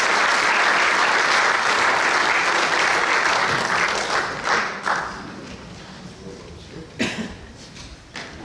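Audience applauding, the applause dying away about four to five seconds in, leaving a few scattered claps and knocks.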